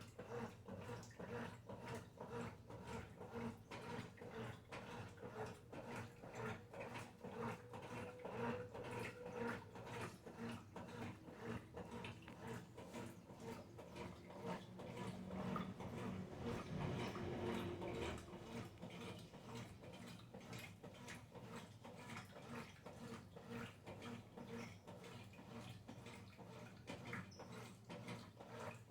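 Brastemp Ative 11 kg top-load washing machine running through its wash, with a low motor hum and a fast, repeated churning. It swells a little louder about halfway through.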